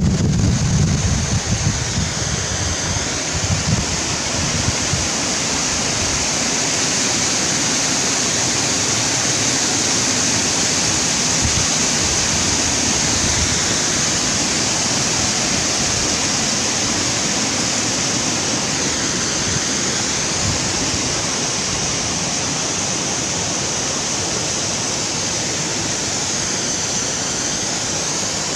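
Steady rushing of a mountain stream cascading down a rocky gully in a series of small waterfalls. Wind buffets the microphone for the first few seconds, then dies away.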